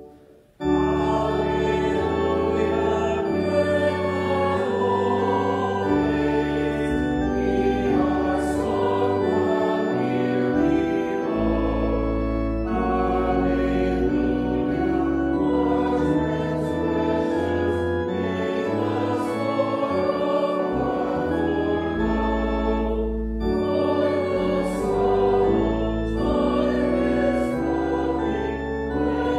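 Congregation singing a recessional hymn with organ accompaniment: sustained organ chords over a deep pedal bass line, with voices carrying the tune. The music breaks off for about half a second at the start, then resumes.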